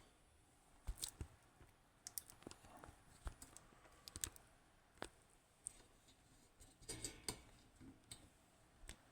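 Faint, scattered small clicks and light taps at irregular intervals, with a few louder clusters about a second in, around four seconds in and around seven seconds in. They sound like small hard objects being handled.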